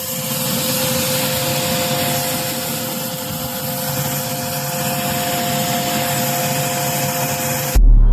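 Ductable air conditioner blower running: a steady rush of air with a steady two-note whine. It cuts off abruptly near the end into a sudden loud low boom.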